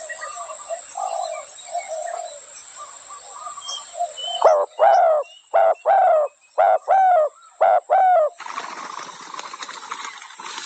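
Spotted dove cooing. Soft coos come first, then about halfway through a loud run of four paired coos, each a short note followed by a longer falling one. A steady hiss takes over near the end.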